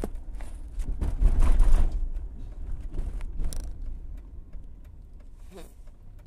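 Handling noise from a phone rubbing and knocking against a leather jacket sleeve inside a car, loudest about a second in, then settling to faint scattered clicks over a low steady cabin rumble.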